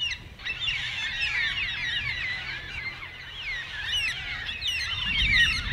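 A flock of Carnaby's black cockatoos calling over one another: a steady racket of many short, falling calls overlapping.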